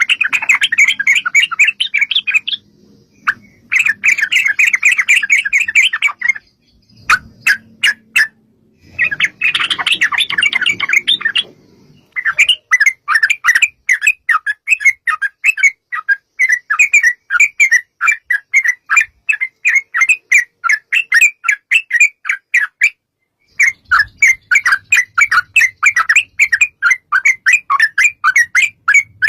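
Yellow-vented bulbul (trucukan) calls: long runs of fast, bubbling, chattering notes repeated several times a second, broken by short pauses about 3 s in, from about 7 to 9 s, and near 23 s.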